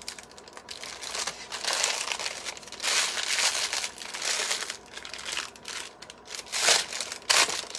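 Clear plastic piping bag crinkling in irregular bursts as it is filled with a spoon, squeezed down and twisted closed.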